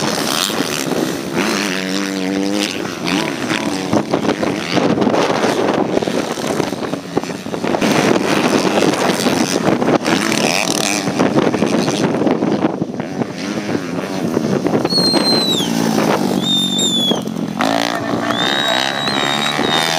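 Small-bore motocross bikes racing, engines revving hard and dropping off repeatedly as riders work through the jumps and turns. Several sharp high-pitched revs fall away near the end.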